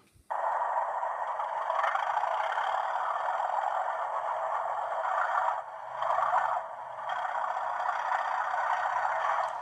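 Hornby TTS sound chip in a model Class 37 locomotive playing its diesel start-up sequence through the model's small speaker. It is a thin, buzzing engine noise that cuts in sharply and runs on, with two brief dips about six and seven seconds in as it settles toward tick-over. The owner reckons it sounds a bit not right.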